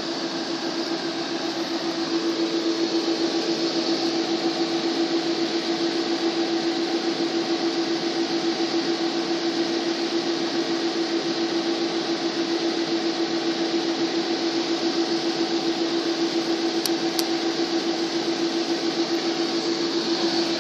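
Audi A6 (4F) TDI diesel engine running at raised idle during a forced diesel particulate filter regeneration, a steady hum over an even rush of mechanical noise. It grows a little louder about two seconds in and then holds steady.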